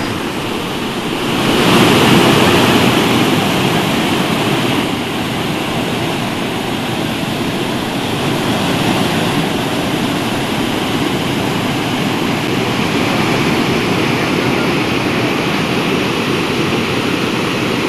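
Floodwater rushing and churning as it pours through in heavy flow, a loud steady rush of water that swells a little about two seconds in.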